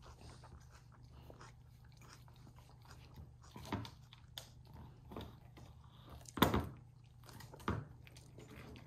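Great Pyrenees puppy gnawing and crunching a large chew bone, with irregular sharp cracks, the loudest about two-thirds of the way through.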